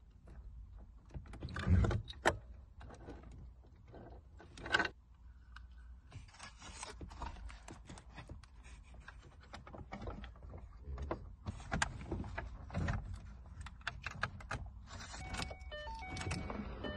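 Plastic connectors and trim clicking, knocking and rustling as a new aftermarket touchscreen head unit is plugged into its wiring harness and fitted into a 2011 Ford Mustang's dash opening, with a thump about two seconds in. A few short electronic beeps sound near the end.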